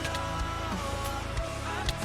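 Rock song playing, led by guitar over bass, with a steady beat.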